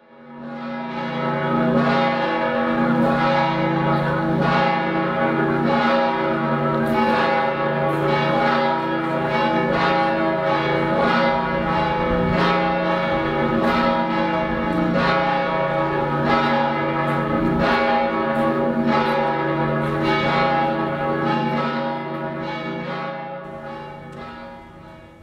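Church bells ringing, repeated strokes with long overlapping hum; the sound fades in at the start and fades out near the end.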